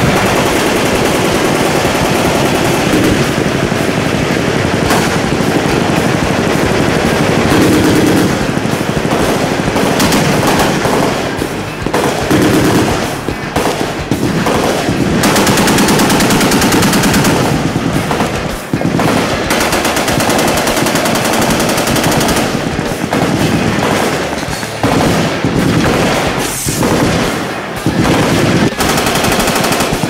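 Several machine guns firing at once in long, overlapping bursts, a near-continuous rattle of shots with only brief lulls.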